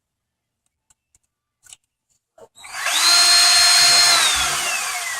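A few faint clicks, then about two and a half seconds in a small cordless electric screwdriver spins up to a high, steady whine and runs, its pitch sliding down over the last second as it slows under load, driving a hex bit in a small screw of an RC truck's suspension arm.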